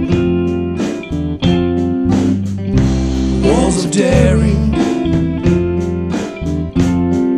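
Band music: acoustic guitar, electric guitar and bass guitar playing together over a steady beat, in a passage between sung lines.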